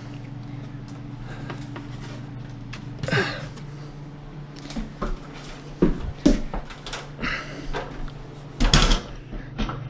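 Scattered clicks, knocks and rustles of hands handling LED light fixtures and their connector cords, over a steady low hum. The loudest handling noises come about three seconds in, around six seconds in, and near the end.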